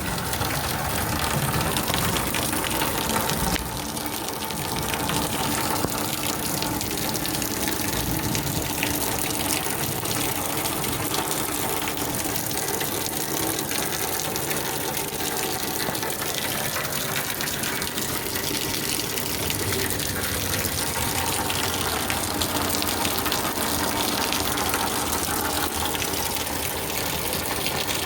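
Heavy rain pouring steadily, a dense even rush of water.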